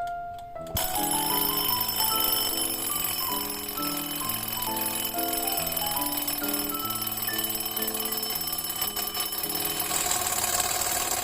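Mechanical wind-up alarm clock's bell ringing continuously. It sets off about a second in as the hands reach the alarm setting, and rings steadily without a break.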